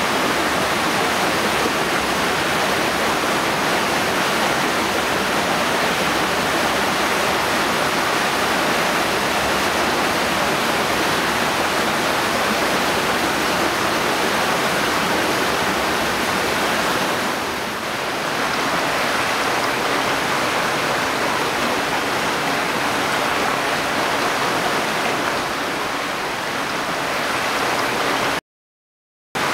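Stream water rushing in a steady, even wash, cutting out completely for about a second near the end.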